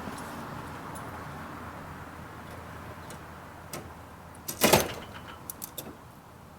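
Ratchet tie-down strap being released: one loud metallic clack and rattle about two-thirds of the way in, followed by a few light clicks, as the strap lets the compressed suspension of the strapped-down bike spring back.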